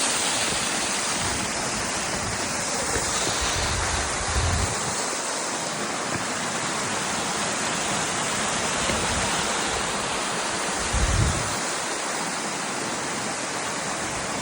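Steady rushing hiss of a waterfall's falling water, with wind gusts buffeting the microphone in low rumbles a few seconds in and again near the end.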